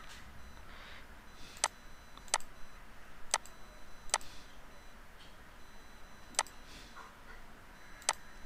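Computer mouse clicking: six sharp single clicks at irregular intervals, two close together about two seconds in and a lone one near the end, over faint room noise.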